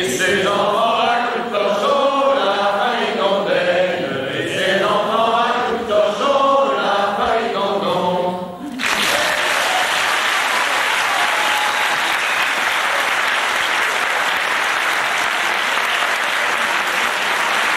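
Unaccompanied voices singing the last phrases of a traditional Gallo song, stopping about halfway through. The audience then breaks into steady applause.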